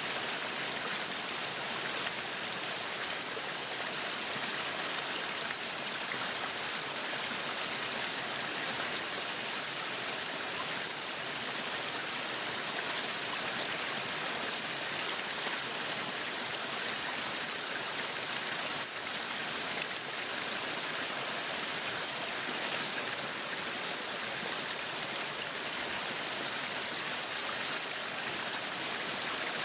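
Meat sizzling on a yakiniku grill: a steady, even hiss.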